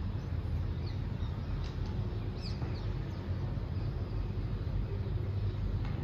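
Several short, faint bird chirps in the first few seconds over a steady low rumble.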